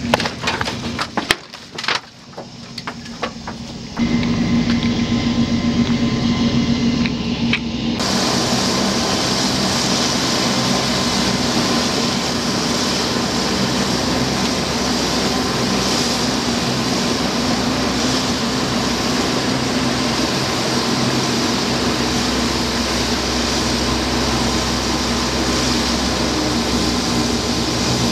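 LCAC military hovercraft running on the quay: its gas turbines and fans give a loud, even rush of noise with a faint steady hum under it, starting about eight seconds in. Before that, a few sharp knocks and clatters.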